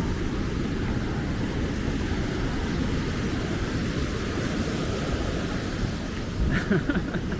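Heavy storm surf from Hurricane Ian breaking and washing up the beach, a steady low rush with wind buffeting the microphone. A brief, slightly louder burst of sound comes near the end.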